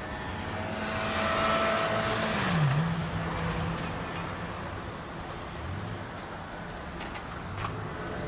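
Steady low engine hum, with a vehicle passing that swells louder from about one to three seconds in, its pitch dipping briefly. A few faint clicks near the end.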